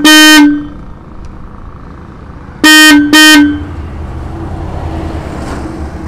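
Roots electric disc horn, off the motorcycle and powered straight from a battery, giving short, steady-pitched toots. One toot sounds at the start and two come close together about three seconds in, while its adjusting screw is set for the loudest tone. A low, steady rumble runs underneath in the second half.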